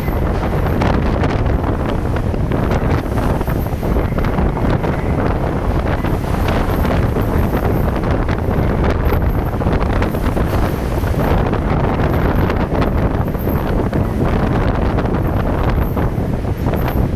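High wind buffeting the microphone aboard a ferry in rough water: a loud, steady blast of wind noise.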